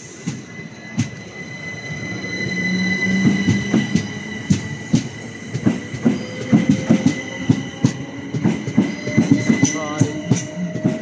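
Southeastern Class 375 electric multiple unit pulling away: a steady high whine with a slowly rising motor tone under it, and wheels clacking over rail joints, the clacks coming faster as it gathers speed.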